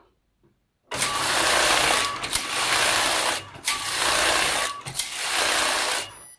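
Passap E6000 knitting machine carriage pushed back and forth across the double needle bed, knitting rows: a dense mechanical rattle of the locks working the needles. It comes in four strokes of about a second each, with brief pauses where the carriage reverses.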